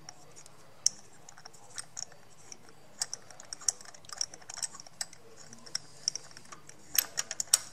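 Light, irregular metal clicks and taps from a spark plug socket and extension turned by hand, backing a spark plug out of a Toyota 1ZZ-FE engine's cylinder head. The clicks come quicker near the end.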